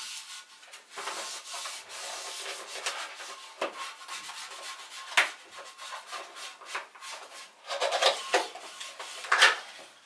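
Irregular rubbing and scraping strokes of a gloved hand scrubbing old wax-ring residue off the porcelain outlet of a toilet, with a few louder strokes about halfway through and near the end.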